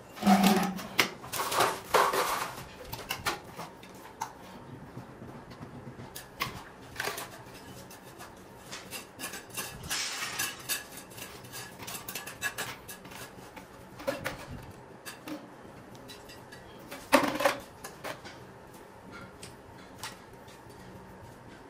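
Grey PVC drain pipes and fittings being handled on a concrete floor: scattered knocks, taps and clatter of plastic on plastic and concrete, busiest in the first few seconds with another loud clatter about three-quarters through.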